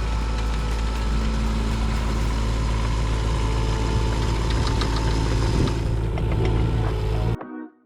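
Kubota U10-5 mini excavator's diesel engine running steadily, with a few light clicks partway through. It stops abruptly near the end.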